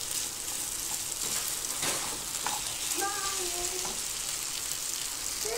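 Strips of marinated beef sizzling steadily in a stone-coated nonstick frying pan as they stir-fry over slow heat, turned with a spatula that knocks lightly against the pan a couple of times about two seconds in.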